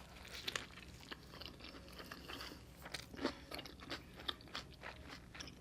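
Close-up chewing of a burrito: soft crunches and wet mouth clicks, scattered at first and coming more often in the second half.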